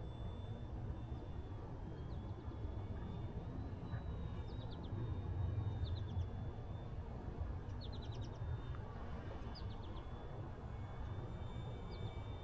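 Low wind rumble on the microphone, with a faint steady high whine from the distant RC plane's electric motor. Short chirps in quick runs of three to five come every couple of seconds.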